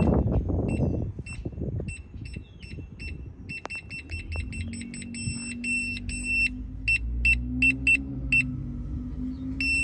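Aftermarket reverse parking sensor beeper sounding a single high beep that repeats faster as the car backs closer to an obstacle, running together into a held tone for a moment, breaking into separate beeps again, then going to a continuous tone near the end, the signal that the bumper is very close. A low engine hum runs underneath.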